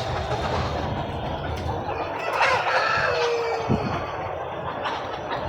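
Chickens on a poultry farm: a rooster crows once, a long call about halfway through, over the steady clucking of the flock.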